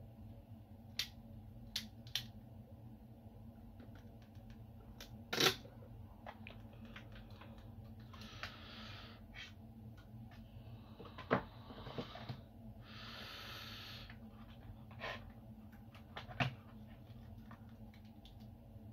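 Scattered clicks and knocks of hard plastic objects being handled and set down on a workbench, the loudest about five seconds in, with a few short rustling or sliding sounds in the middle and a faint steady hum underneath.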